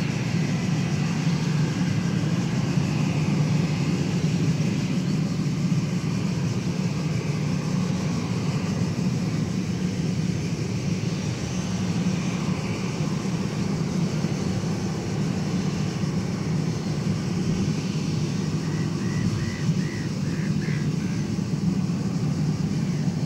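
Airbus A319 jet engines running steadily at low power as the airliner sits on the runway, a steady low rumble with a faint whine.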